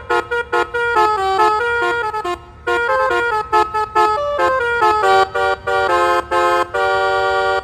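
Basuri telolet bus horn, a multi-trumpet air horn, playing a quick melody of short honked notes. Toward the end several notes sound together, closing on a held chord that cuts off.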